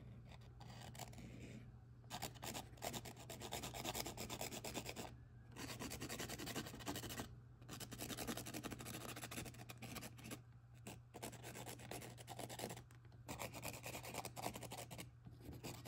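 Felt-tip marker rubbing quickly back and forth on a small textured canvas as it colours in, in runs of rapid strokes broken by short pauses.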